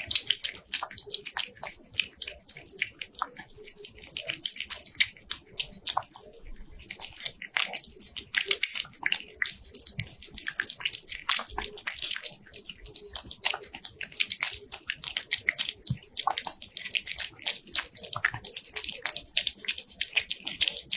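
A cat's close-up mouth noises: rapid, irregular wet smacking and clicking, as in eating or licking.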